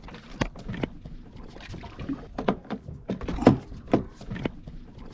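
Irregular knocks and clicks from gear being handled aboard a small fishing boat at sea, over a low, steady wash.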